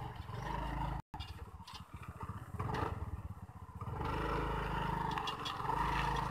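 Honda Activa 3G scooter's 110 cc single-cylinder engine running under throttle as the scooter pulls up out of a rocky stream bed. It grows louder from about four seconds in, with a brief dropout about a second in.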